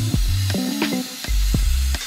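Background music with bass notes and drum hits.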